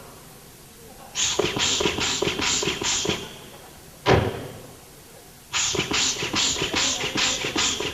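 A recorded sound-effects track: two runs of quick rhythmic bursts, about four a second, with one heavy thud between them.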